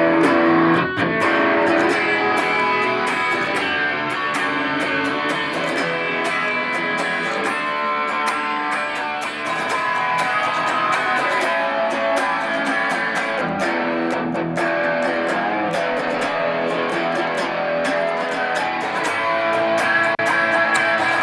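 Electric guitar played through an amplifier with a distorted (overdriven) tone: continuous lead and chord playing with sustained notes and picked attacks.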